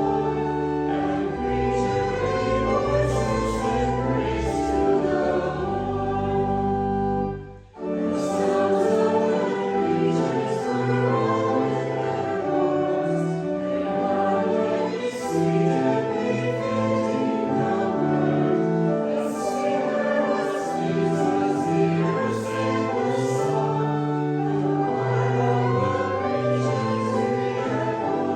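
A congregation singing a hymn with instrumental accompaniment of steady held chords, pausing briefly about seven seconds in before the next line.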